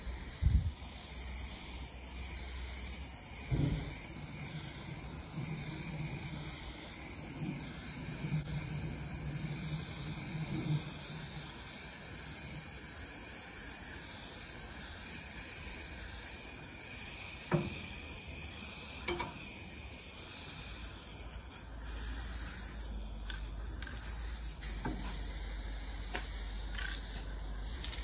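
Aerosol spray paint can hissing as paint is sprayed onto a barrel barbecue grill, with a few sharp clicks in between.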